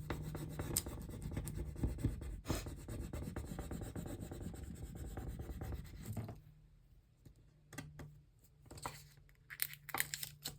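Scratchy rubbing on paper for about six seconds, then it stops and only a few light paper rustles and taps follow.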